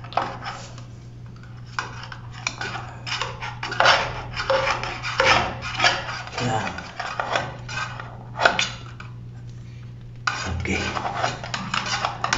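Metal scraper blade scraping along a shower-wall joint, prying off old, peeling silicone sealant. Irregular scrapes and metallic clicks, with a pause about nine seconds in.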